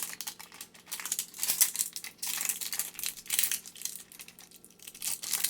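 Crinkly plastic wrapping of a 5 Surprise Mini Brands capsule ball rustling and tearing as it is unwrapped by hand: irregular crackles, easing off briefly about four seconds in before picking up again.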